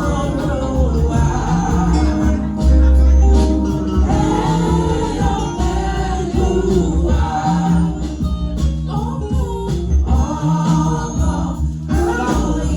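Church choir singing a gospel anthem over live accompaniment, with deep bass notes and a steady beat.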